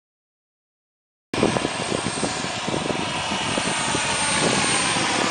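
Silence, then about a second in the sound cuts in abruptly: a radio-controlled model helicopter flying overhead, its engine and rotors running with a steady whine.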